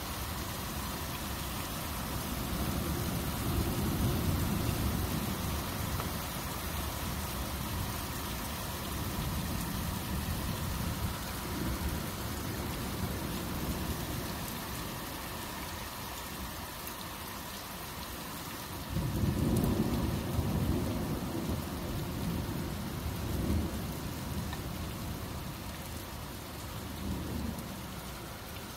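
Heavy thunderstorm: steady rain with rolling thunder. A long low rumble swells a few seconds in, and a second one starts suddenly about two-thirds of the way through and rolls on for several seconds.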